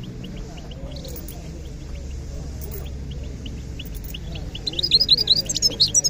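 Caged finch singing: a quiet run of short, evenly spaced chirps, then a louder, fast, varied twittering song from about three-quarters of the way in. A murmur of crowd voices sits underneath.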